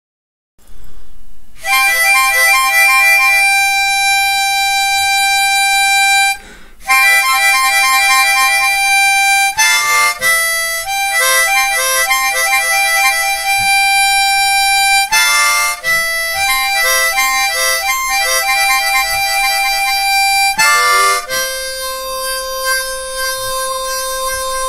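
Harmonica played solo: a slow tune of long held notes and chords, with a few quick runs of changing notes and a brief breath pause about six seconds in, ending on one long held note.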